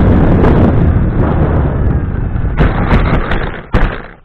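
Radio-controlled Air Tractor model airplane heard from its own onboard camera: loud wind buffeting and propeller noise close to the ground, then a run of knocks and scrapes from about two and a half seconds in as the plane hits the ground and flips onto its back. The noise cuts off abruptly near the end.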